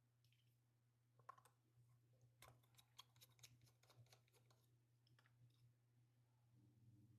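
Near silence with faint, scattered small clicks of a precision screwdriver working tiny screws out of a camera body, over a low steady hum.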